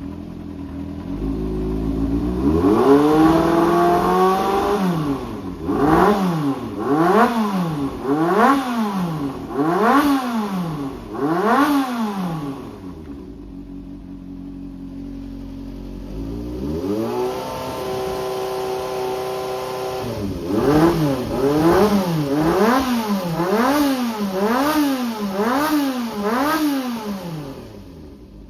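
Yamaha XJR400's air-cooled inline-four engine idling, then revved up and held, then blipped about six times in quick rises and falls; it drops back to idle, is revved and held again, and blipped about eight more times before settling to idle. It runs cleanly with no abnormal noise, as the seller states.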